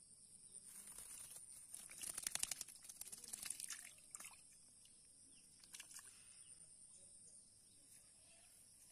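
Faint splashing and rustling in shallow, weedy water for about three seconds, crackling with quick clicks and loudest just past the middle. A couple of sharp clicks follow. A steady high insect drone runs underneath.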